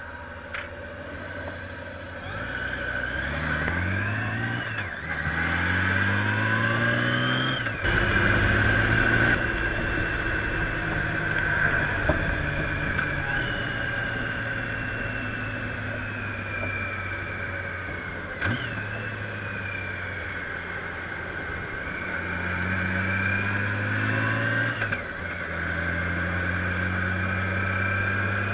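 Honda Gold Wing touring motorcycle's flat-six engine pulling away, its pitch rising and dropping back at two upshifts in the first eight seconds. It then runs steadily at cruising speed, with another rise and upshift about 25 seconds in.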